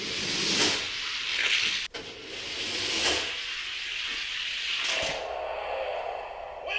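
Small die-cast cars rolling fast down a plastic Hot Wheels track, a rushing hiss that swells and fades several times.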